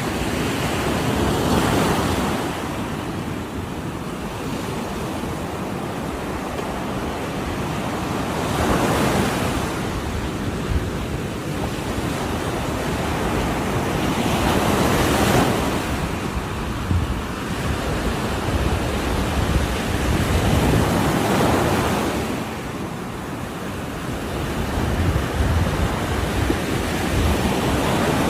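Ocean waves breaking on the shore: a continuous wash of surf that swells into a louder crash about every six seconds.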